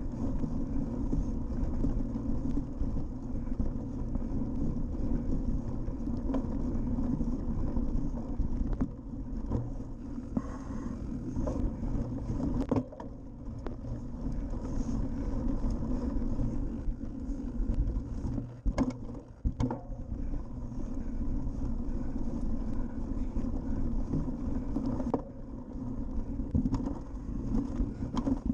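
Steady rumble of a cyclocross bike's knobby tyres running over bumpy grass, mixed with wind on the bike-mounted camera's microphone. A few sharp knocks and rattles come as the bike hits bumps.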